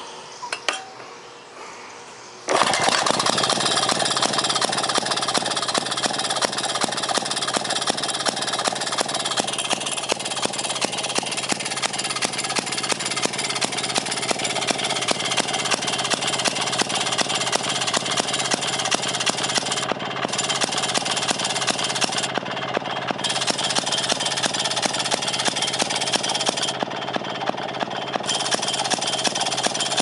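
A restored 1934 Maytag Model 92 Multimotor, a single-cylinder two-stroke washing-machine engine, gives a couple of knocks and then catches suddenly about two and a half seconds in. It runs steadily with a rapid, even firing beat, a little too fast because its governor still needs adjusting.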